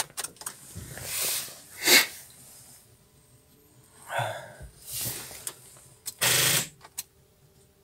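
Clicks and a few short bursts of noise, with no engine running and no steady cranking, as the ignition key is turned. The loudest is a half-second burst about six seconds in. This is a failed cold start at −18 °C of a Subaru Impreza 2-litre engine fed only by a lithium 18650 jump starter, which did not have enough current to start it.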